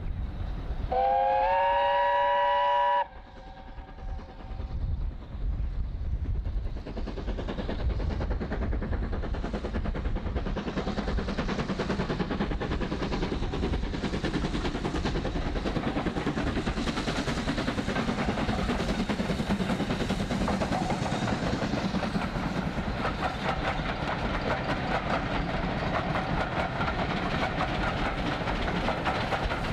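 BR Britannia class 4-6-2 steam locomotive No. 70013 Oliver Cromwell gives one whistle blast about two seconds long, starting about a second in. It then works past with its coaches, the exhaust and the clatter of wheels over rail joints building up and staying loud as the train goes by.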